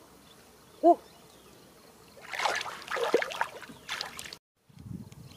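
Shallow pond water splashing and sloshing as a person wades and kicks through it, for about two seconds past the middle. About a second in there is a short, loud pitched call that rises and falls in pitch.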